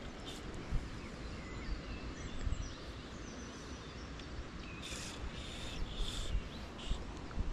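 Wind rumbling on the microphone, with faint bird calls. About five seconds in comes a quick run of four or five short high hisses.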